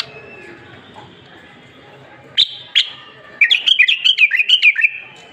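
Bulbul singing: two sharp high notes, then a quick run of bright chirping notes lasting about a second and a half.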